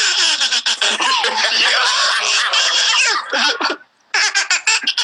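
Loud laughing: a long run of quick bursts that breaks off for a moment near the end, then starts again.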